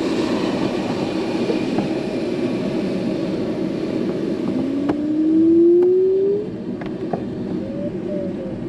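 Airflow rushing over an ASW 27 glider's canopy, heard inside the cockpit as a steady loud rush. About four and a half seconds in, a tone rises in pitch; it cuts off about two seconds later, and the rush drops in level.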